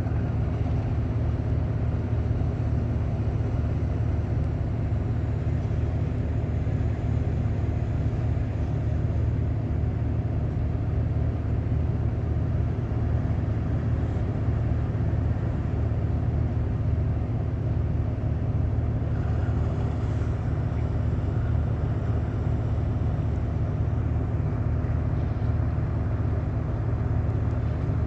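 Boat engine running at a steady pace: an even, low-pitched drone that holds constant throughout.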